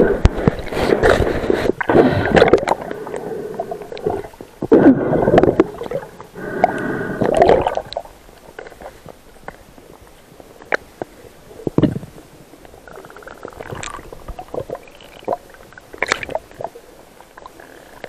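Underwater bubbling and gurgling, heard through an underwater camera housing. It comes in two long bursts over the first eight seconds, typical of a diver exhaling. After that it is quieter, with scattered small clicks and knocks of gear moving underwater.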